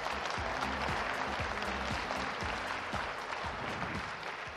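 Large audience applauding, the clapping easing off near the end.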